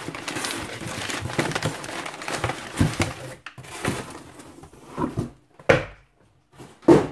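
Crumpled paper packing rustling and crackling as it is pulled out of a cardboard shipping box, then a few sharp knocks of cardboard as a boxed knife is lifted out and set down on a table, the two loudest near the end.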